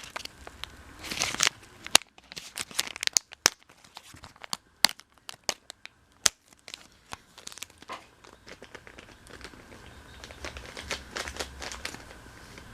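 Crinkling plastic lure packaging being handled and opened, with irregular rustles and sharp plastic clicks and snaps, busiest in the first half.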